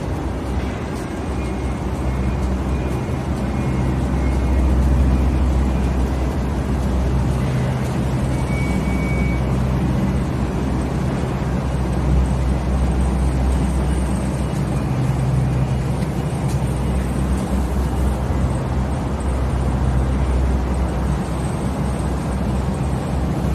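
Steady low machine hum from the refrigeration and cooling fans of a produce cold-storage room, running continuously over a constant rushing noise.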